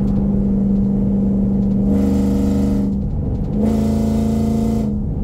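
A 2006 Toyota Sequoia's 4.7 L V8, heard from inside the cab at highway speed through its aftermarket headers and muffler: a steady exhaust drone, which grows harsher and fuller twice, about two seconds in and again a little past halfway.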